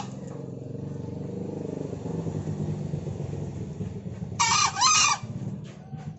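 A caged junglefowl-type rooster crows once, a short two-part crow about four and a half seconds in. Under it runs a steady low engine hum that swells and then fades.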